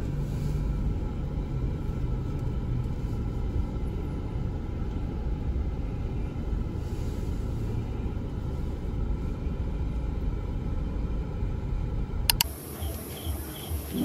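Steady low rumble of a vehicle in motion, with a sharp click about twelve seconds in, after which the rumble drops away.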